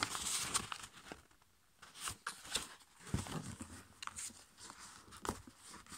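A5 copy paper rustling and crackling as it is folded in, with fingertips pressing and creasing the folds against a tabletop; a brief lull about a second in.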